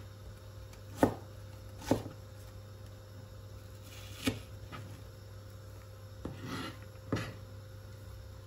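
Knife strokes on a plastic cutting board while finely dicing an onion: four sharp knocks of the blade on the board, irregularly spaced, with softer scraping and slicing between.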